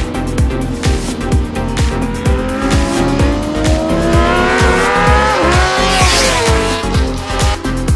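Background music with a steady beat over a racing sport motorcycle engine that revs up with pitch rising for a few seconds, then drops in pitch as it passes.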